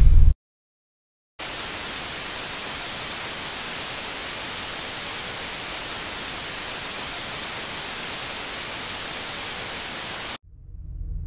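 Steady static hiss, an even white-noise sound effect, starts abruptly after about a second of silence and cuts off suddenly near the end. A low rumble then swells in.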